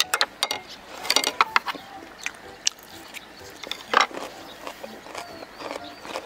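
Close-miked eating: a run of sharp mouth clicks and chewing crackles with utensil taps, and one louder bite about four seconds in.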